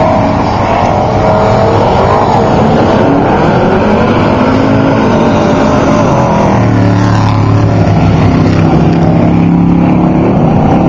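Engines of several off-road desert race trucks running and revving together, their pitches overlapping and rising and falling, with a steadier low engine note in the second half.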